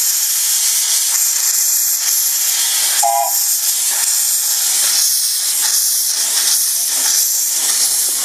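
Miniature steam locomotive pulling away, a steady loud hiss of escaping steam around its cylinders and wheels, with faint puffs coming through in the second half. A brief high tone sounds about three seconds in.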